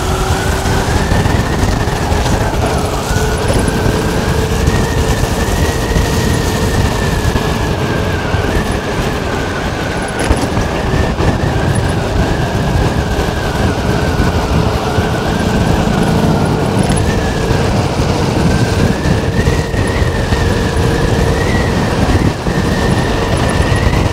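Will Mason T1S electric moped at full throttle: its motor whine climbs slightly at first and then holds steady near top speed, around 40 mph, under heavy wind rush and road noise on the microphone.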